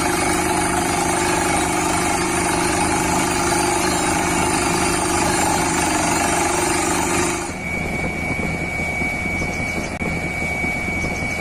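Small electric motors of a homemade model borewell drilling rig running with a steady whine. About seven seconds in, part of the sound stops and it drops to a quieter, thinner hum.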